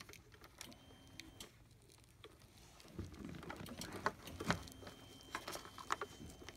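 Faint handling noises: scattered light clicks, taps and rustles, with a few sharper knocks from about three seconds in.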